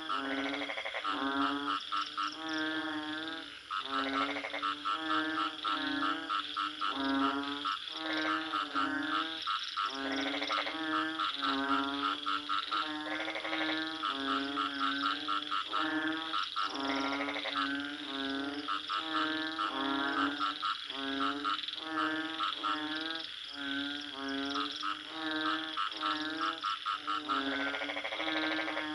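A chorus of many frogs croaking, their repeated calls overlapping continuously with no break, over a steady high-pitched drone.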